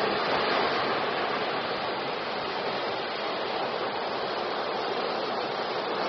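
Ocean waves breaking on a beach: a steady rush of surf and white water, a little louder right at the start.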